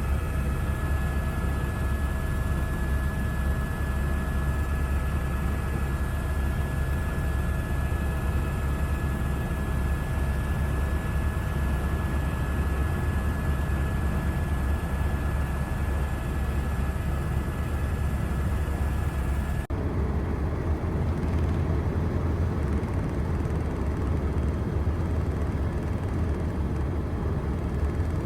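Steady drone of an aircraft in flight, with a strong low rumble and a few steady whining tones above it. About two-thirds of the way through, the sound changes abruptly and the whine drops out, leaving the low rumble.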